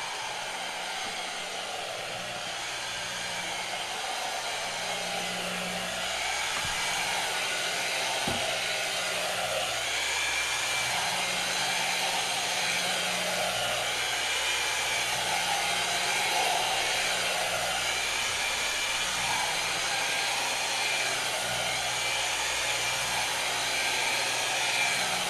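Electric rotary carpet agitator, a pole-mounted polisher-type motor spinning a round brush pad, running steadily while it scrubs a longer-pile carpet.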